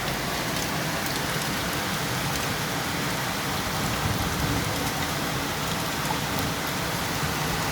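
Steady heavy rain falling, an even hiss with the faint ticks of individual drops striking.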